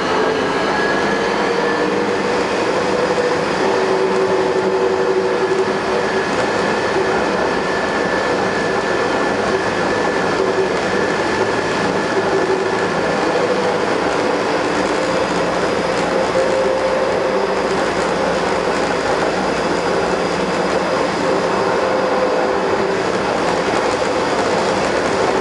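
Taipei Metro Wenhu line Bombardier rubber-tyred automated train running at steady speed: a continuous rolling rumble with a whine of several held tones that waver slightly in pitch. This is one of the Bombardier cars that the uploader says have developed abnormal running noises.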